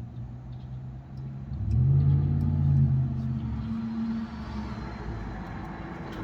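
A car engine running close by, swelling suddenly about a second and a half in, holding for a couple of seconds, then easing off as the car passes. Faint light clicks sound over it.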